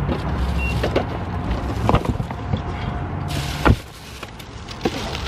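Shopping being loaded from a cart into a car's cargo area: a low rumble with a few knocks over the first few seconds, then thumps as boxes and bags are set down, the loudest right at the end.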